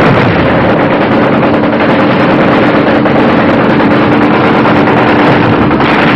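Riverine assault craft engines running steadily: a continuous engine hum under heavy noise.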